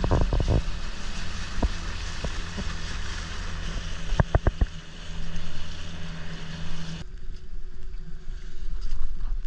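Motorboat engine running with wind and water noise, and a few sharp knocks near the start and again around four seconds in. The sound changes abruptly about seven seconds in, losing much of its hiss.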